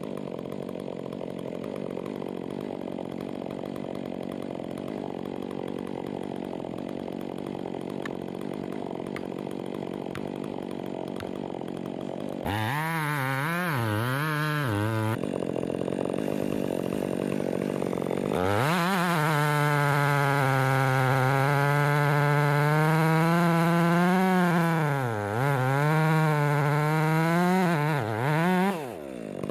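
Gas chainsaw cutting oak: a steady lower running drone at first, then the saw at full throttle with its pitch sagging and recovering several times as the chain bogs down in the wood.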